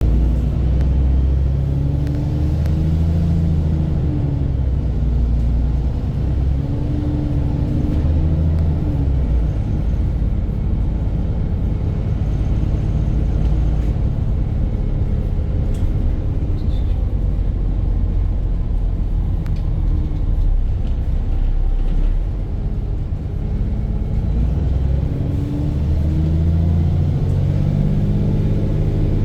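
VDL bus's diesel engine running with a heavy low rumble, its pitch rising and falling with engine speed in the first ten seconds and again near the end, steadier in between. The engine is knocking, with the exhaust blown.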